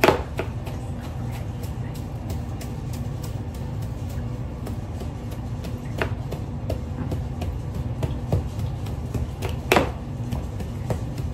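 A spatula stirring and scraping snow cream (snow mixed with milk and sugar) in a plastic mixing bowl: a steady run of small scrapes and taps, with a louder knock against the bowl at the start and another near the end.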